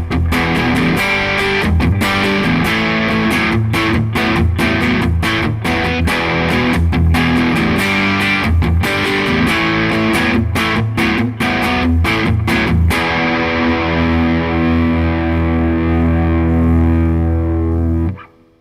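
Gibson electric guitar played through distortion: a riff of picked chords and notes, then one chord held from about thirteen seconds in. The chord rings for several seconds before it is cut off sharply near the end.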